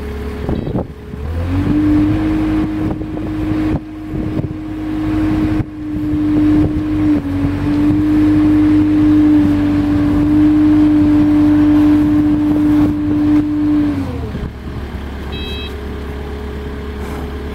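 Kubota compact wheel loader's diesel engine rising from idle to a steady high rev about a second in as it works its hydraulics to move the raised bucket. It holds there steadily, then drops back to idle a few seconds before the end.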